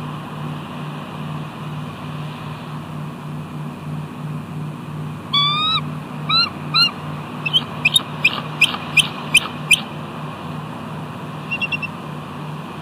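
Bald eagles calling on the nest: three drawn-out, wavering high calls about five seconds in, then a quick run of about eight short, sharp piping notes, and a faint brief chatter near the end, over a steady low hum.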